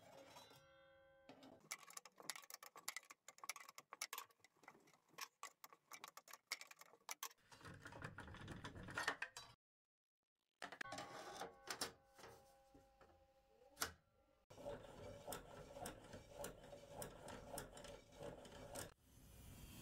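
Faint scattered clicks, taps and light metallic clinks of a wrench and a table saw's clear plastic blade guard being handled as the guard is unbolted and lifted off.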